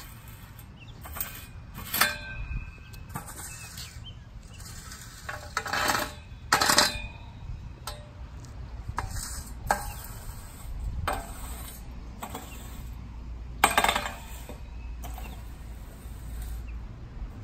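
A 36-inch landscape rake scraping and clinking in separate short strokes, some with a brief metallic ring, as it is worked over top-dressing on the turf and knocks against the ground. The loudest strokes come about six seconds in and again near the end.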